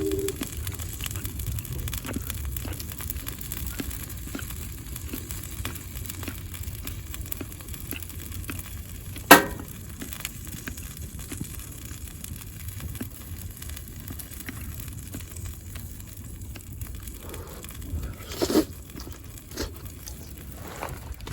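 Outdoor cooking fire crackling steadily with fine pops over a low rumble. A single sharp knock comes about nine seconds in, and a softer one near the end.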